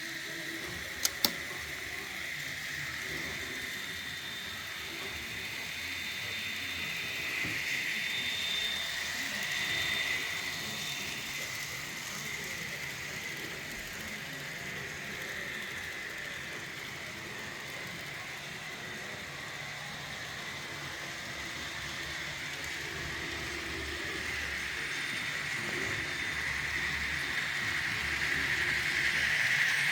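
Kato N-scale diesel locomotive running around the layout: a steady whir of the small motor and gears with the wheels rattling along the track, swelling as the train passes and growing louder near the end. Two sharp clicks about a second in.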